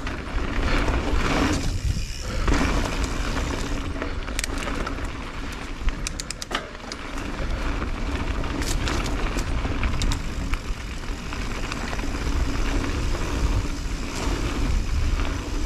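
Wind rushing over the camera microphone and tyres rolling on a dirt trail while a full-suspension mountain bike is ridden, with a few sharp clicks and rattles from the bike midway.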